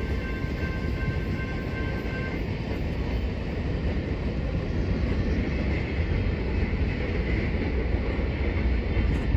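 Railroad crossing's warning bell ringing, then stopping about two seconds in as the gates start to rise. Under it runs the steady rumble of the passed BNSF freight train moving away along the rails.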